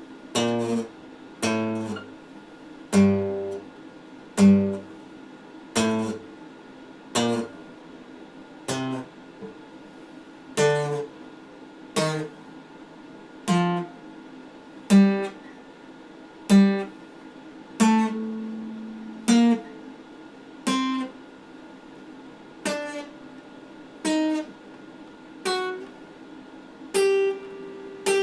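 Epiphone steel-string acoustic guitar played slowly: single chords picked or lightly strummed about once every second and a half, each left to ring and fade before the next.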